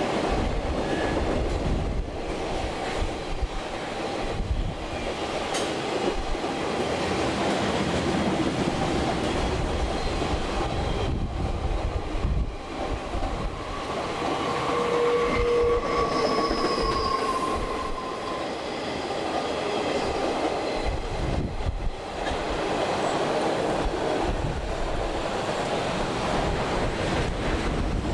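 Piggyback freight train of trailers on flatcars rolling past: a steady rumble and clatter of wheels on rail. About halfway through, the wheels squeal briefly in several high tones.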